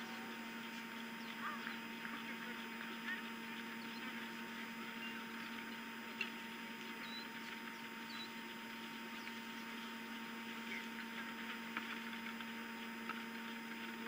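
Outdoor webcam ambience: a steady electrical hum under a faint even hiss, with a few faint short chirps and ticks.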